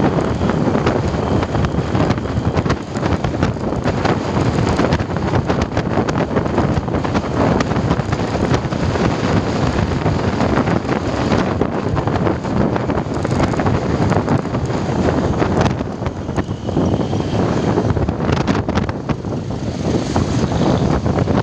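Wind rushing and buffeting over the microphone of a moving motorcycle, mixed with road and traffic noise.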